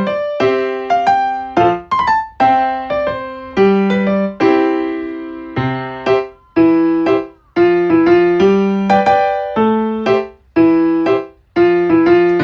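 Background music: a piano-like keyboard playing a light melody of struck notes and chords, each fading after it is played.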